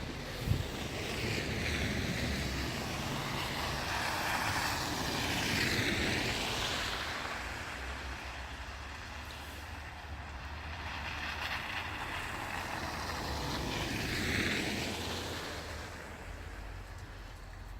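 Two vehicles passing one after the other on a snow-covered street, their tyres hissing through wet snow and slush, each swelling and fading over several seconds. A short knock about half a second in.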